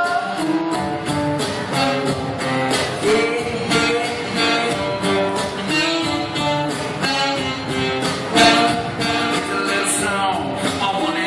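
Live pop band music: strummed acoustic guitar over a steady percussion beat, with other pitched instruments, during a stretch between sung lines.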